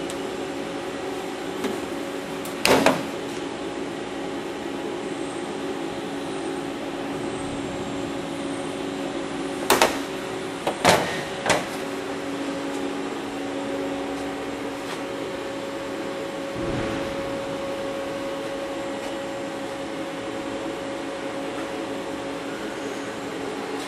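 Haas SL-30T CNC lathe powered up, giving a steady hum with several steady tones. Sharp metallic knocks break through it once about three seconds in and three times between about ten and twelve seconds in.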